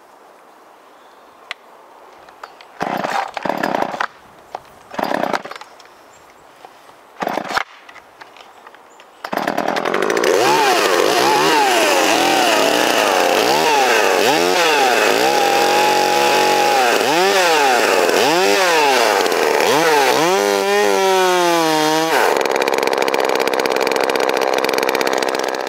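Poulan Wild Thing two-stroke chainsaw pull-started: three short bursts of firing, then it catches about nine seconds in and is revved up and down over and over. Near the end it runs steady at full throttle as it is set into the log, then shuts off. The new Oregon chain is on backwards, so the saw barely cuts.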